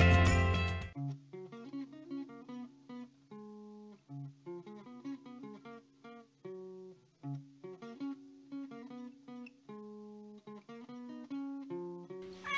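Background music: a loud piece cuts off about a second in, followed by a quiet melody of plucked guitar notes, each fading after it is struck.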